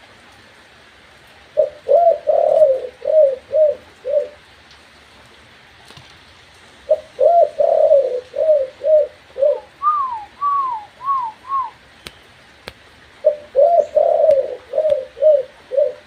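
Spotted dove cooing three times, each call a quick run of short notes. The middle call ends in a few higher, down-slurred notes. It is a hand-tamed caged bird cooing to its keeper's hand cue.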